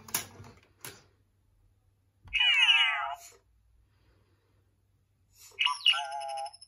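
Animatronic Lola (L0-LA59) droid toy making its electronic chirps: two short warbling calls with wavering, falling pitch, about two seconds in and near the end, after a couple of clicks at the start.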